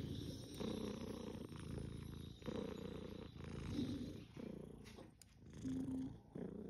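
British Shorthair cat purring while being scratched under the chin, a sign of contentment. The rumble swells and dips about once a second as the cat breathes in and out.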